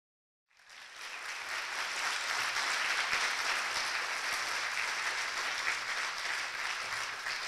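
Audience applauding, starting about half a second in, building over a second and then holding steady.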